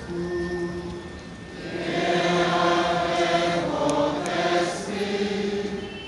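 Choir singing a slow liturgical chant in long held notes, swelling louder about two seconds in and easing off near the end.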